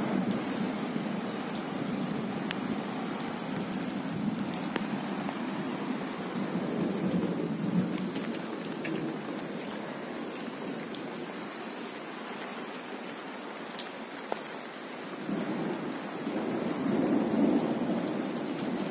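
Heavy rain pouring steadily, with scattered sharp drop ticks over a low rushing rumble that swells near the end.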